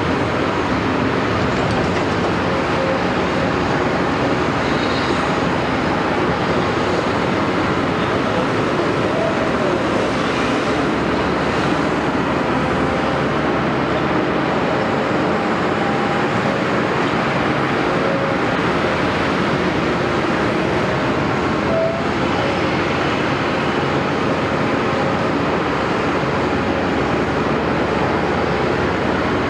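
Caterpillar 329E hydraulic excavator working, its diesel engine running steadily at a constant level.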